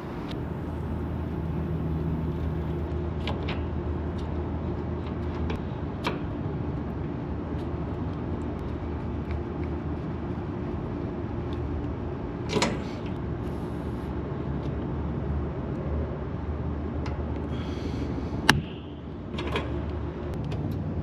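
A steady low machine hum runs throughout, with a few sharp metallic clicks and short hisses as new valve cores are fitted into an AC system's service ports. The loudest click comes near the end.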